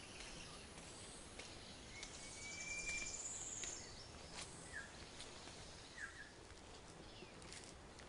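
Quiet forest ambience with birds calling: a short whistled note and a high, rapid trill about two seconds in, then two short down-slurred calls about five and six seconds in, over faint scattered clicks.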